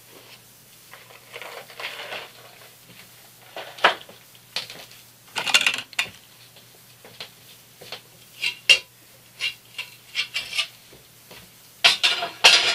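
Pliers clicking and clinking against the metal frame and springs of a 1965 Corvette seat bottom as it is taken apart: irregular sharp metallic clicks and short scrapes, coming thicker and louder near the end.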